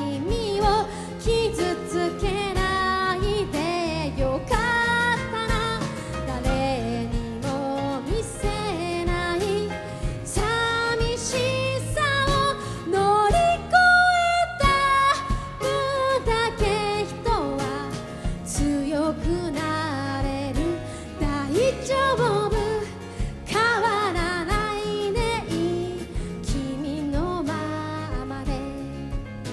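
Live band music: a woman singing a pop ballad over piano, bass and drums.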